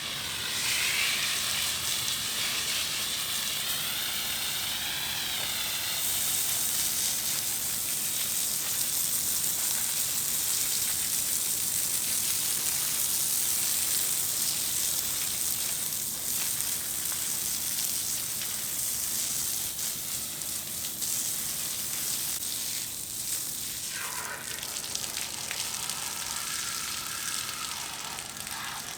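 Garden sprayer putting out liquid herbicide: a steady hiss of spray, with a faint wavering tone under it in the first few seconds and again near the end.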